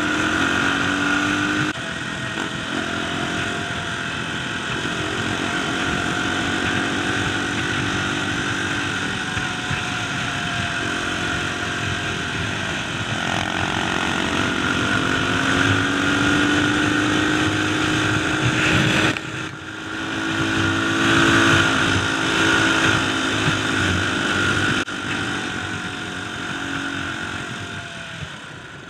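Dirt bike engine running under way, its pitch rising and falling as the rider works the throttle and shifts gears. The engine drops off sharply about two-thirds of the way through, then pulls up again, and it eases off near the end.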